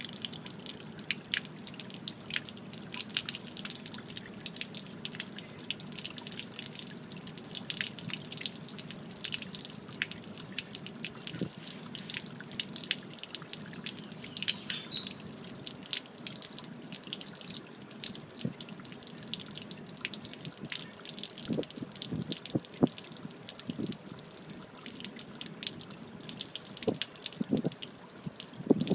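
Water running out of a Mako Pro Skiff's open hull drain in a thin stream and splashing onto pavement, a steady patter of many small drips. It is water that had collected inside the hull, the sign of a water problem in the boat that the owner says needs fixing.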